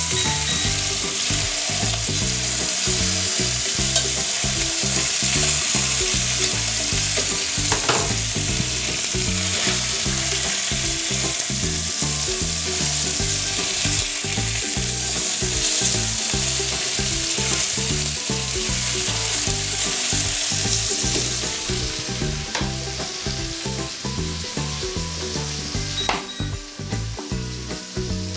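Chicken thighs sizzling as they fry in a pan. The sizzle is steady, then eases off and grows quieter in the last few seconds.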